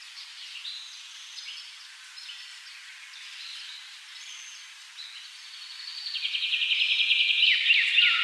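Several songbirds chirping and whistling in short phrases. About six seconds in, a louder, fast chattering trill starts and carries on.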